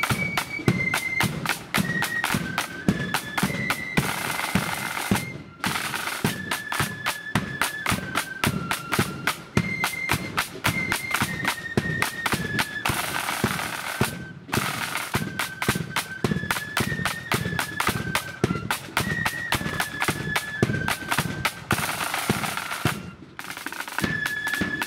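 Blood-and-thunder marching flute band playing a march: a rank of snare drums beating fast patterns over the bass drum, with flutes carrying the melody above. Three times the snares break into a roll that ends in a brief pause.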